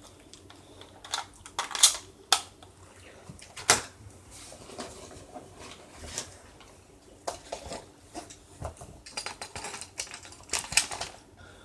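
Irregular clicks, taps and rustles of a revolver being handled and fitted into a leg holster, with a denser run of quick clicks near the end.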